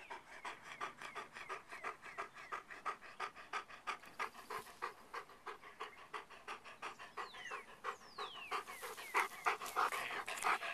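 Weimaraner panting rapidly and evenly, about four breaths a second, close to the microphone. The panting grows louder near the end.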